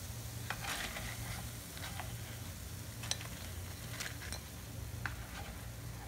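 Kuttu (buckwheat-flour) potato pakoras frying in shallow ghee in a pan, sizzling with a few sharp crackles and pops scattered through.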